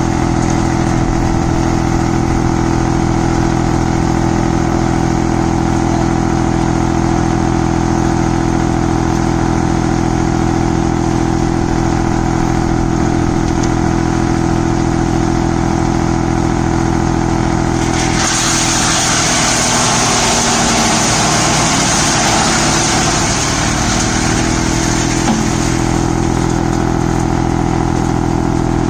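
Tractor-driven wood chipper running with a steady engine tone. About 18 seconds in, a harsh shredding noise rises as thorny branches are fed into it and the engine tone wavers under the load, easing off again by about 26 seconds.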